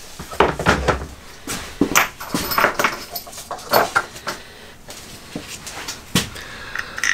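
Scattered knocks and clinks of hand tools and small metal parts being set down and picked up on a workbench, one sharp knock every second or so.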